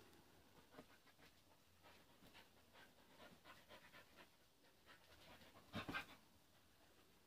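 Faint sounds of dogs playing: soft panting and scuffling. There is a short, louder burst of sound just before six seconds in.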